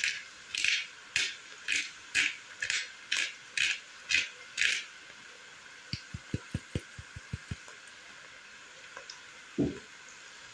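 Pepper being dispensed over a pan of onions: about ten short scratchy bursts, roughly two a second, over the first five seconds. Then comes a quick run of soft low taps, and a single thump near the end.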